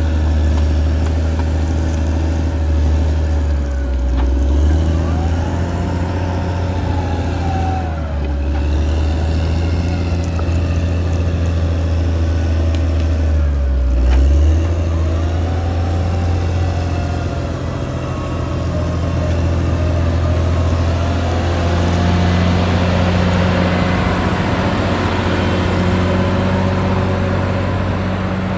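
Caterpillar D6R XL bulldozer's diesel engine running steadily at work, its note dipping briefly about four seconds in and again around fourteen seconds. A fainter whine above it rises and falls a few times.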